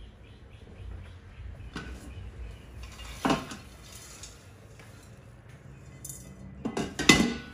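Stainless steel Instant Pot inner pot being handled and tipped to pour out popcorn, clanking against the cooker and a glass bowl. There are a few separate knocks, then the loudest clatter near the end.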